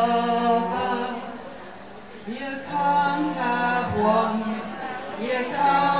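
A woman singing held notes in phrases to her own cello accompaniment, in a live cabaret song.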